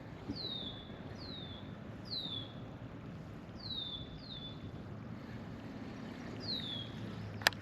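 A bird repeatedly giving a short, high, down-slurred call, six times at irregular intervals, over a low steady background hush, with one sharp click near the end.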